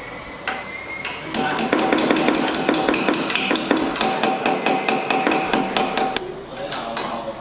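Quick run of hammer blows on metal, several strikes a second with a ringing note, starting a little over a second in and stopping about six seconds in.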